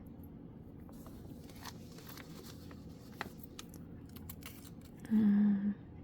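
Small clicks and rustles of jewelry pieces being handled and turned over, over a low room hum. About five seconds in there is a short voiced hum.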